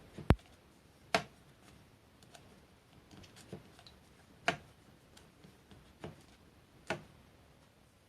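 Sharp clicks and knocks of metal lathe parts being handled, five louder ones at uneven intervals with fainter ticks in between.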